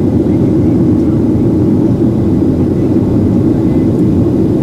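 Cabin noise of a Boeing 737-800 in flight: a steady low rumble from its CFM56 turbofan engines and rushing air.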